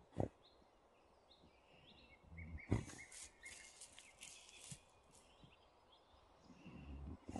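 A dog digging in garden soil: a scratchy rustling of paws in earth for a couple of seconds in the middle, with two sharp thumps, the second the loudest, just before it. Small birds chirp repeatedly in short high notes.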